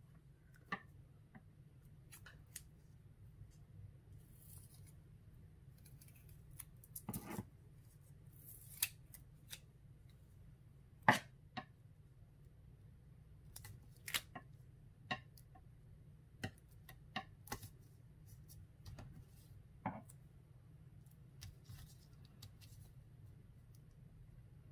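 Scissors snipping strips of double-sided tape in scattered single cuts, mixed with light handling of the tape and card, over a faint low hum. The loudest snip comes about eleven seconds in.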